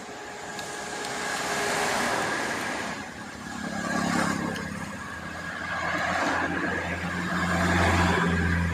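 Motorbike traffic passing on a road. The engine noise swells and fades several times, and a steady low hum grows louder near the end.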